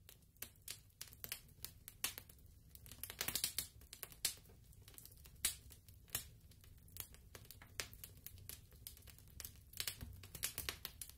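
Faint, irregular clicks and taps over a low hum.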